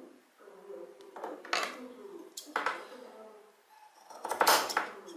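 A few sharp clattering clinks of hard objects, like dishes or metal knocking together, the loudest group near the end.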